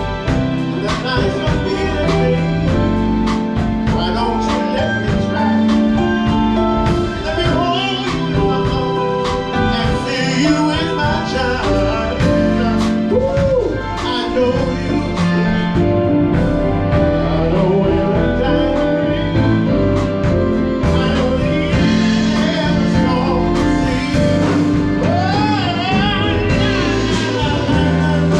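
A live band playing a song with a singer's voice over it, the singer's held notes wavering near the end.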